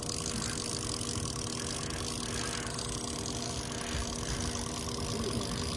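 Boat motor running steadily at low trolling speed: an even hum with a few fixed tones over a constant hiss.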